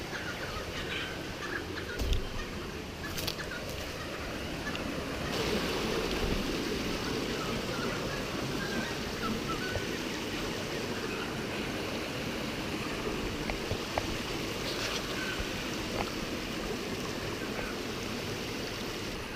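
Shallow rocky creek running steadily, a little louder from about five seconds in, with a few footsteps knocking on stones.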